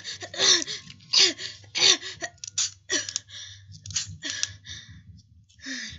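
A person's repeated short, breathy gasps with a hiccup-like catch of voice in some of them, about one every half second to a second, growing sparser near the end.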